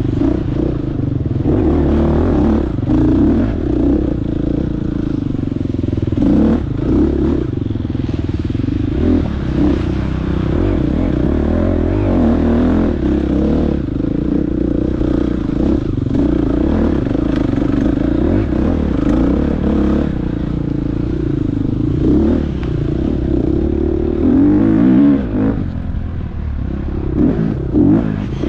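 Husqvarna FX 350 four-stroke single-cylinder dirt bike engine running hard, its revs rising and falling with the throttle, with scattered clattering knocks from the bike.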